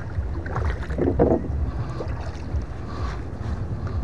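Wooden paddle stroking through the water beside a small canoe, with a louder splash about a second in, over steady wind rumble on the microphone.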